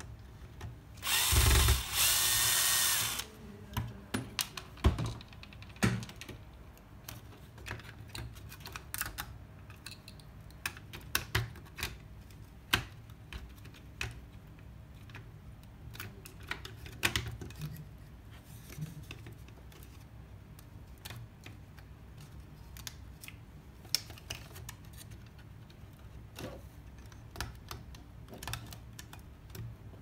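Cordless drill-driver runs for about two seconds a second in, backing out the screw that holds a microwave oven's control circuit board. This is followed by scattered light clicks and taps as the board is worked loose from its plastic housing.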